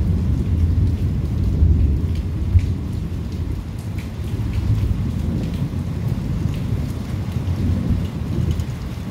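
Thunderstorm: thunder rolls with a continuous low rumble over steady rain, and scattered raindrops tick close by.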